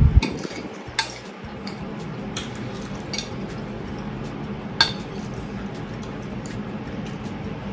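Cutlery clinking against a dish during a meal of noodles and chicken: about six separate sharp, ringing clinks, the strongest about one second in and just before five seconds in.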